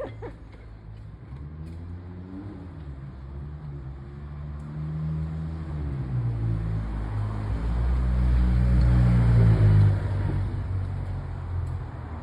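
A motor vehicle's engine running and speeding up, its pitch rising as it grows louder to a peak near the end, then falling away.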